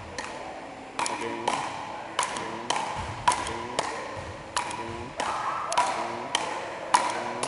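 Frescobol rally: a ball struck back and forth between two solid paddles, sharp cracks about one to two a second, each ringing and echoing off the hall's walls.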